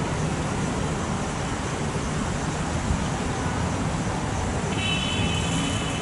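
Steady road-traffic noise, mostly a low rumble, with a brief high-pitched squeal about five seconds in.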